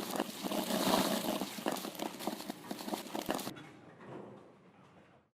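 A rapid run of clicks and clattering knocks, swelling about a second in, fading away after about three and a half seconds, and cutting off.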